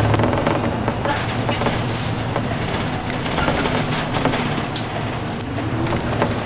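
City bus running, heard from inside the cabin: engine hum and road noise, with small rattles and clicks. A thin high-pitched squeal comes briefly three times.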